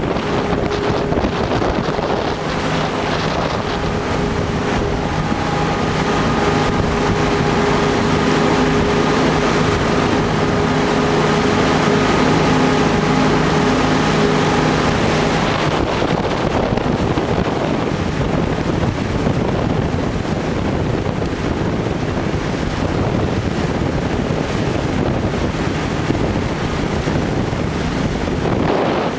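Tour boat under way: a steady engine hum, clearest in the first half, under loud wind buffeting the microphone and water rushing in the wake.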